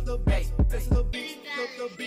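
Background hip hop music with a heavy bass and drum beat. A little past halfway the bass and drums drop out, leaving only the higher parts of the track.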